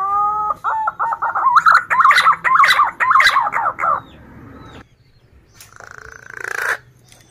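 Male punai daun green pigeon singing: a rising whistled note, then a fast run of wavering, warbling whistles lasting about three seconds. A short noisy rustle follows about six seconds in.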